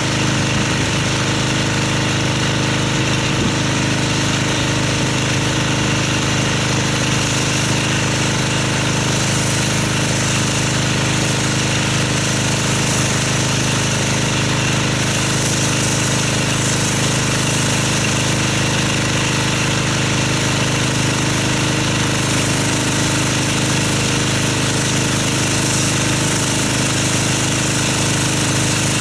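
Pressure washer running steadily with a continuous drone, its high-pressure spray rinsing snow foam off a car's paint and wheel.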